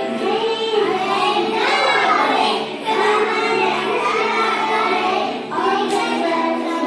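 Children's nursery rhyme: children singing to a bright backing track.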